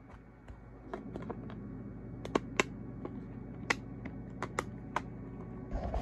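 Irregular sharp clicks, a dozen or so, over a steady low hum, with a louder cluster of knocks near the end.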